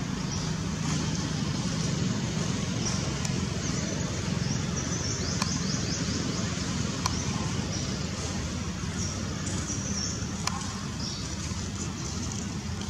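Steady outdoor background rumble, with short high-pitched chirps now and then and a few faint clicks.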